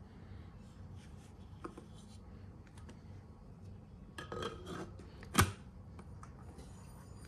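Outex glass dome port and its black plastic ring being pressed onto the cover's flange by hand: a rubbing scrape a little after four seconds, then one sharp click about a second later as the parts meet.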